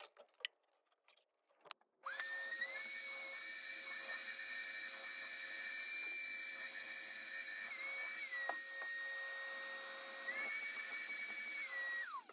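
An electric power-tool motor switches on about two seconds in and runs with a steady high whine, its pitch stepping up and down a few times as the load changes, then winds down at the very end. A few light knocks come before it starts.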